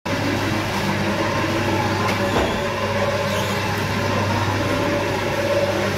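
A steady machine hum with a low, even drone.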